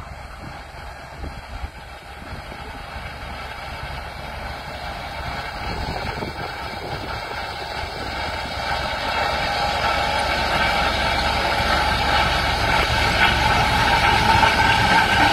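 A tractor pulling a Quivogne Rollmax field roller over stubble: a steady low engine drone with the rolling noise of the steel ring rollers over the ground, growing steadily louder as the machine draws close.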